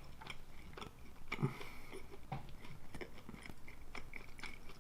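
Close-miked chewing: irregular, faint mouth clicks and smacks of someone chewing a mouthful of pizza.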